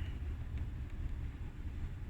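Steady low rumble of background noise, with no distinct knocks or clicks.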